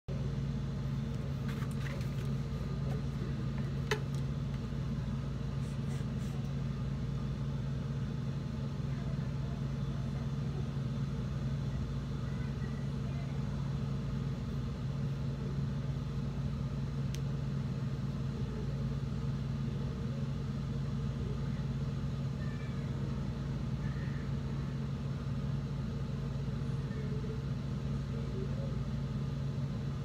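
Steady low mechanical hum, unchanging throughout, with a few faint clicks, one sharper about four seconds in.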